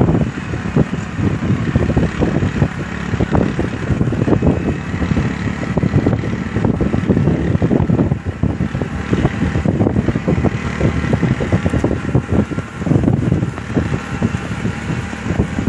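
A vehicle driving alongside a galloping horse on sandy ground: a steady rumble of engine and tyres, with wind buffeting the microphone in irregular thumps.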